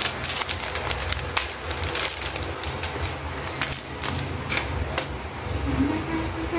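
Small plastic bag of diamond painting drills being handled and opened by hand, crinkling in irregular crackles and clicks, over a steady low hum.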